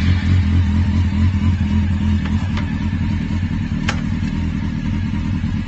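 Motorcycle engine running just after being started, idling steadily with a somewhat fuller note for the first couple of seconds. A sharp click comes about four seconds in.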